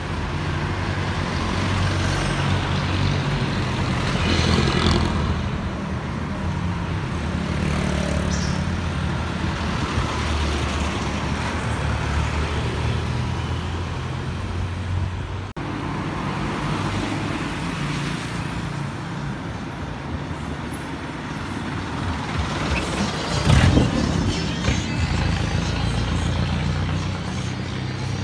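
Street traffic of diesel jeepney engines and motorcycles running and passing by. One jeepney goes by close near the end, and its engine and rattle are the loudest part.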